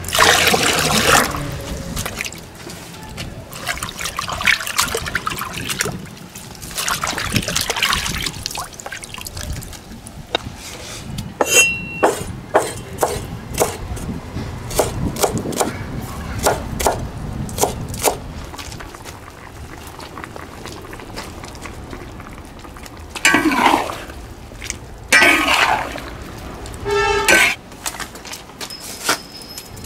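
Water splashing as it is poured into a glazed earthenware basin, then a cleaver chopping spring onions on a wooden board in a run of sharp strokes. Near the end a metal ladle scrapes and stirs in an iron wok of simmering pumpkin.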